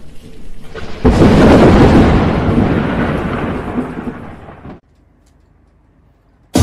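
Thunder sound effect: a low rumble, then a sudden loud thunderclap about a second in that rumbles on and fades, cut off abruptly near the end.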